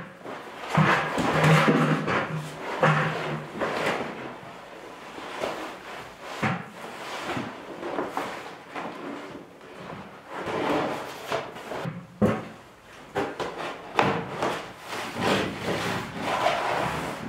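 Stiff tar paper rustling and crinkling as a sheet is held up and smoothed against a board wall, with several sharp clacks as it is fastened.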